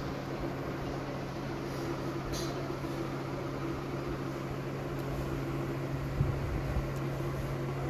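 Steady low mechanical hum at a constant pitch, with a soft knock about six seconds in.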